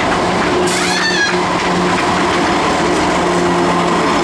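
Freight train's lead diesel locomotives passing close by, their engines running with a steady drone over the rolling rumble of wheels on rail. A short high-pitched wavering call sounds about a second in.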